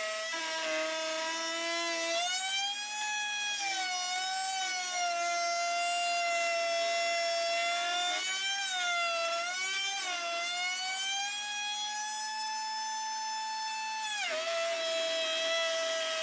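Table-mounted router spinning a large template bit as it trims a hard maple table leg to shape. Its high motor whine wavers in pitch as the cut loads and eases, with a sharp drop about fourteen seconds in. A steady lower hum runs underneath.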